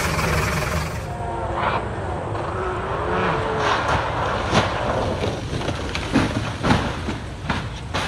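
A rally car on a gravel stage: steady engine rumble, then several sharp cracks in the second half, likely stones and the car striking the ground. A voice calls out briefly in the first half.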